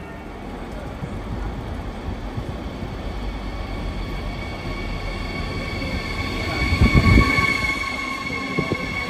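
Train running on the rails with a steady rumble that grows louder, and a high squeal of several steady tones that sets in around the middle. A short burst of low thumps comes about seven seconds in.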